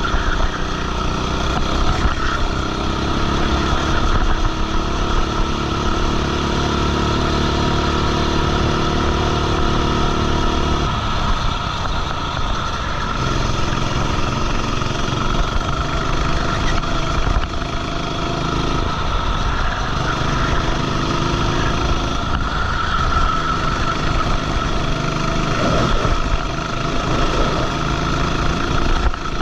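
Racing kart engine running at speed, heard from on board the kart. Its pitch rises and falls as the kart speeds up and slows, with a clear drop about eleven seconds in.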